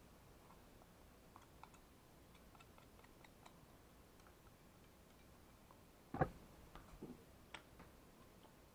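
Camera being bumped: a sharp knock about six seconds in, followed by a few lighter knocks, after several seconds of near silence with faint scattered clicks.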